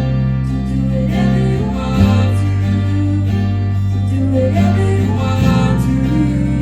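Live contemporary worship band music led by acoustic guitar over a sustained bass, the chord changing about two seconds in and again about five and a half seconds in.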